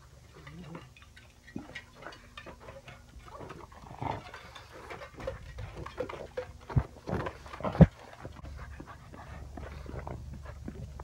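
Pugs breathing, snuffling and panting right at the microphone, with two sharp knocks about seven and eight seconds in.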